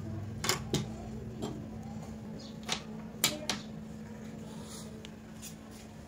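Several sharp clicks and knocks in the first half, the loudest just past three seconds in, over a steady low hum.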